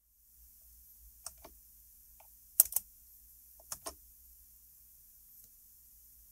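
A few short, sharp plastic clicks, the loudest a quick pair about two and a half seconds in and another pair about a second later: the Porsche Cayman's instrument-cluster controls being clicked to call up the oil level measurement on the dash display.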